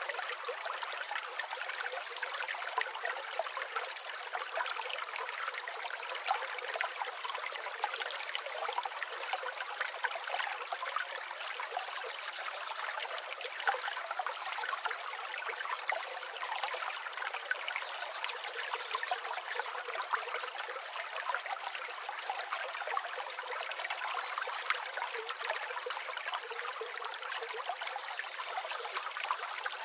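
Shallow river or stream flowing steadily, a continuous babbling trickle of many small splashes with no deep rumble.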